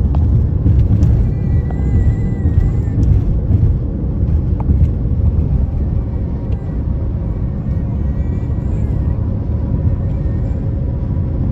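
Steady low road and wind rumble of a car driving along the interstate.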